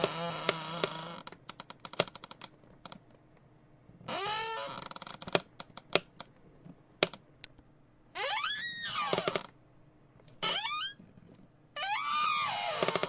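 A chair squeaking and creaking as it is shifted: about five drawn-out squeaks that slide up and down in pitch, with sharp clicks and ticks between them.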